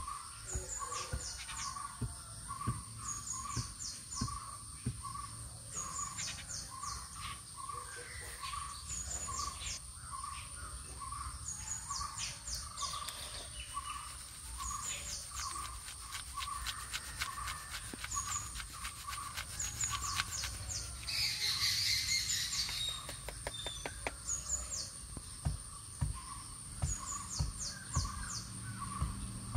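Birds calling: one repeats a single short note a bit more than once a second while others give quick high chirps every couple of seconds, over a steady high insect whine.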